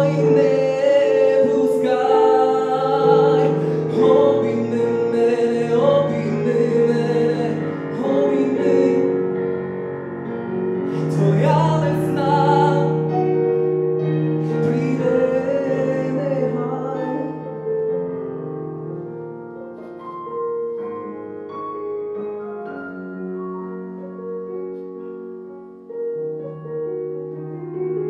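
A man singing a song into a microphone with piano accompaniment. The voice stops a little over halfway through and the piano plays on alone, more quietly.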